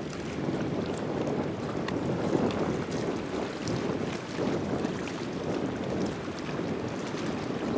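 Distant low roar of a departing Airbus A320neo's jet engines, wavering in level, with wind on the microphone.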